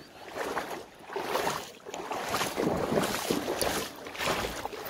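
Small pike thrashing and splashing in shallow water as it is reeled in on a spinning rod, an uneven run of sloshing splashes.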